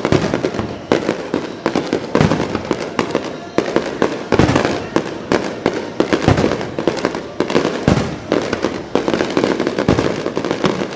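Aerial fireworks bursting in a dense barrage: sharp bangs several a second over continuous crackling.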